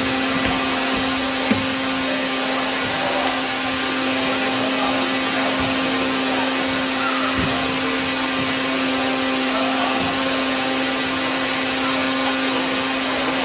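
Steady machine hum and hiss: one held tone with overtones over an even noise, unchanging throughout, with a single sharp tick about a second and a half in.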